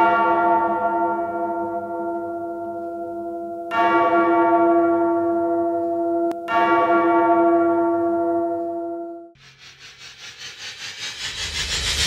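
A deep church bell tolls three times, a few seconds apart, each stroke ringing on and slowly fading. About nine seconds in, a pulsing, fluttering swell of noise begins and grows steadily louder.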